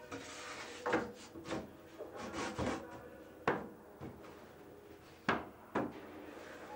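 Pine wall boards knocking and scraping together as a board is pushed into place by hand: a string of sharp wooden knocks with rubbing between them. The loudest knock comes about three and a half seconds in, and two more land close together a little after five seconds.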